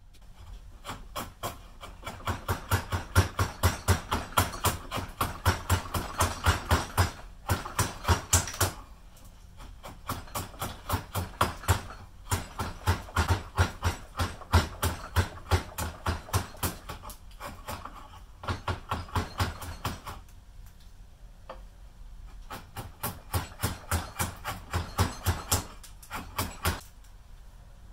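The steel blade of a large slick chisel rubbed quickly back and forth on a wooden block, about three strokes a second, in several bouts with short pauses.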